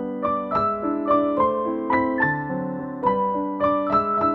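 Background piano music: a melody of quick notes, several a second, over held lower chords.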